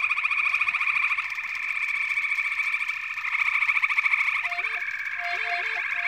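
Dense frog chorus: many frogs calling at once in rapid pulsed trills. About four and a half seconds in, a few short wavering tenor saxophone notes come in underneath.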